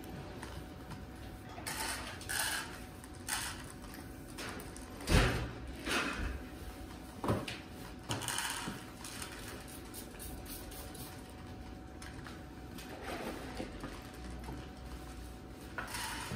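Irregular clatters and rustles of cat food bowls and dry kibble being handled as cats eat, with one sharper knock about five seconds in.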